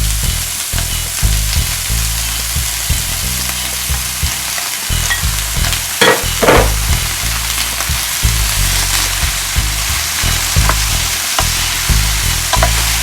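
Bell peppers, broccoli and mushrooms sizzling in coconut oil in a pan while being stirred, a steady frying hiss, with a louder scrape about six seconds in and a few small clicks later.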